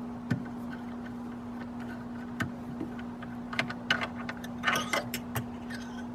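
Light clicks and taps of a hand handling the oil tank cap and dipstick in a motorglider's engine bay, bunched together about four to five seconds in, over a steady low hum.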